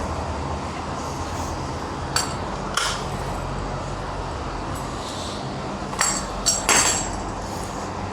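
Several sharp metallic clinks and knocks, two in the first half and a louder cluster of three near the end, over a steady low mains-type hum.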